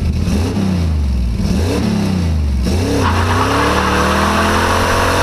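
Car engine accelerating hard, its revs climbing and dropping several times in quick succession as it shifts up through the gears. About three seconds in it settles into a longer, higher pull with more exhaust and road noise.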